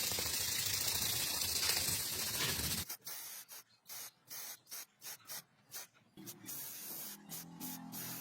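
Pressurised spray hissing steadily for about three seconds, then let off in a run of short bursts. Faint music comes in near the end.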